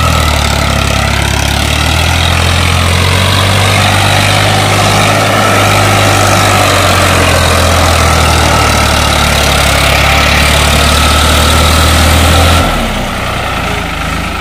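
Farmtrac 45 tractor's three-cylinder diesel engine working hard under load as it pulls a trolley heaped with sand through soft sand, running loud and steady. Near the end the sound drops suddenly to a quieter engine running.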